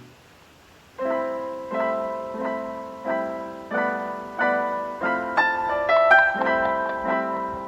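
Background piano music: a near-silent gap of about a second, then a slow, even piano melody with a short higher run just past the middle.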